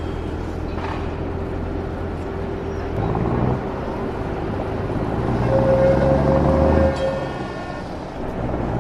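Added street-traffic sound effect: motor vehicle engines running with a steady low rumble. A louder engine swells about five seconds in and cuts off sharply near seven seconds.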